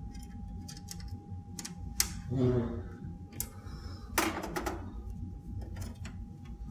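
Scattered small clicks and taps of metal parts being fitted together as a graphics card and its bracket are worked into a PC case, over a faint steady high hum.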